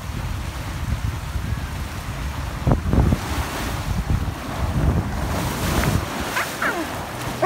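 Water rushing down a fibreglass water slide, with wind buffeting the microphone as the rider speeds down, and a few knocks about three seconds in. About five seconds in comes a splash into the pool.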